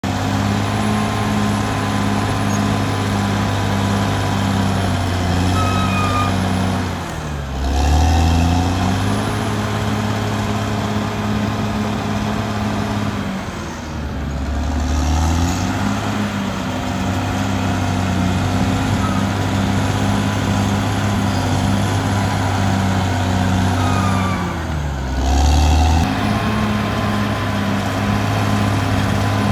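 Caterpillar D6R XL bulldozer's diesel engine running steadily. Its note dips and recovers three times, each time with a brief surge of deep rumble.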